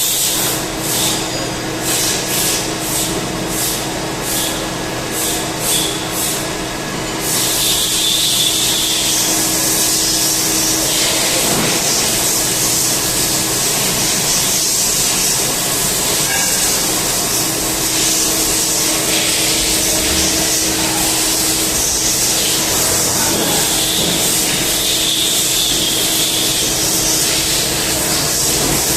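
CNC turning machine running, with a steady mid-pitched hum and a dense high hiss. Short pulses of hiss come about twice a second for the first several seconds, then the hiss goes on unbroken. The hum drops out for a few seconds midway and comes back.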